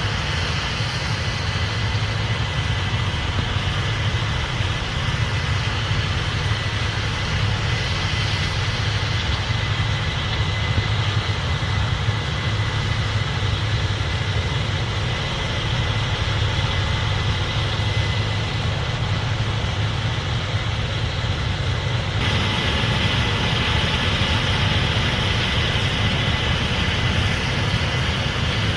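Case IH 8250 Axial-Flow combine running steadily: a constant low hum with a broad hiss over it. About 22 seconds in, the higher hiss steps up and grows brighter.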